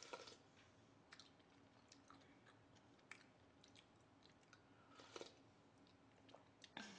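Faint close-up eating sounds: soft chewing with a few short wet mouth smacks and clicks, the clearest just after the start, about five seconds in and near the end.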